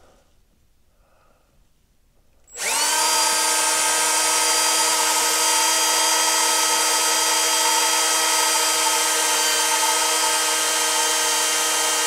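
Electric drill turning a 16-inch, 1/4-inch self-boring bit through the wood framing. It is stopped for the first couple of seconds, then spins up about two and a half seconds in and runs with a steady, even whine.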